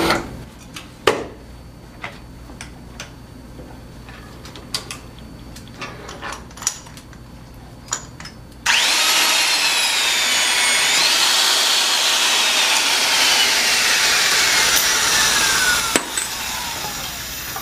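Light clicks and knocks of handling first. About 8.5 seconds in, an electric shear wrench starts with a sudden loud whirring, its motor whine falling steadily in pitch as it tightens a tension control bolt. About 16 seconds in there is a sharp click as the pintail shears off, and the motor winds down.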